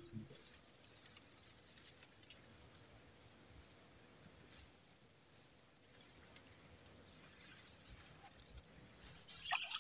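Insects chirring in a steady high-pitched trill, which stops for about a second midway.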